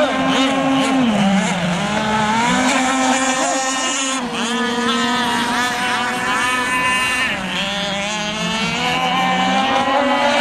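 Engines of radio-controlled model racing speedboats running flat out on the water, several pitches heard at once. The main engine note dips twice and climbs back.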